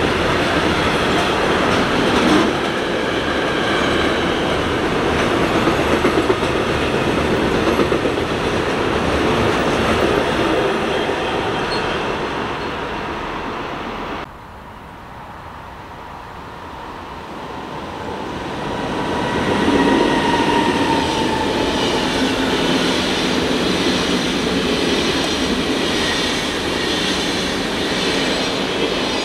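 Intermodal freight train of container and truck-trailer wagons rolling past with steady wheel-on-rail noise, cut off abruptly about halfway. A Swiss passenger train then approaches and passes, its wheel noise building up over a few seconds, with a brief high squeal from the wheels.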